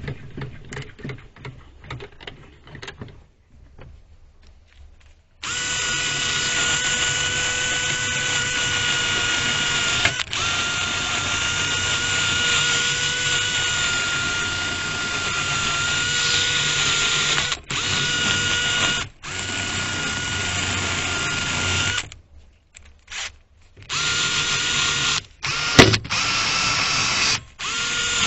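Handheld electric power tool, with light scraping and ticking at first. About five seconds in, the motor starts and runs steadily with a constant whine, working on the metal square. Near the end it stops and restarts several times in short runs.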